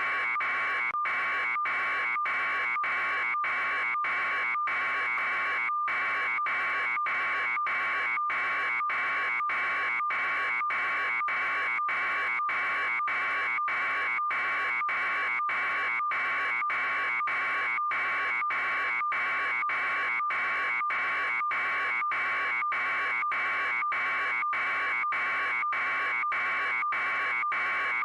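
Steady electronic buzzing tone, pulsing with short breaks about twice a second.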